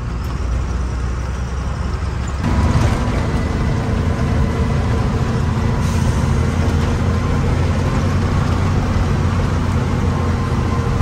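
Truck engine running under way, a steady low hum that steps up and grows louder about two and a half seconds in as the engine takes more throttle, then holds steady.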